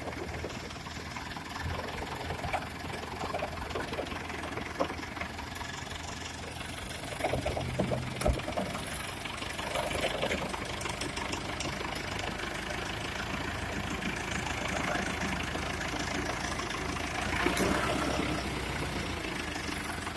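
JCB backhoe loader's diesel engine running steadily, with scattered clanks and knocks. The engine gets louder for a few seconds about eight seconds in and again near the end, as if under load.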